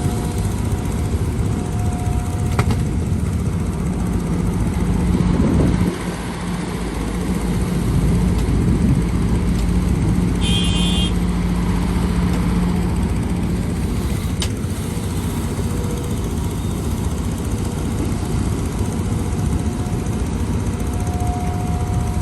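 Diesel engines of heavy earthmoving machinery, an excavator and dump trucks, running steadily. A steady engine note holds through the middle, and a short high-pitched sound comes about halfway through.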